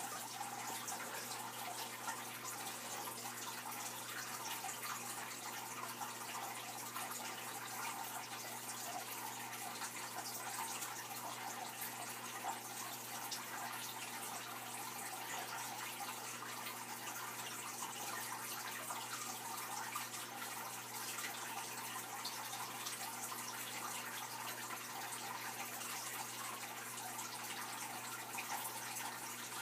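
Steady trickling and splashing of aquarium water with a low steady hum underneath, unchanging throughout.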